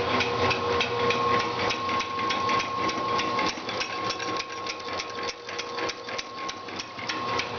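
Hobart 4246 mixer grinder running empty in mix-grind mode: a steady electric-motor whine with a fast, continuous clatter of metal parts. The higher whine fades about halfway through.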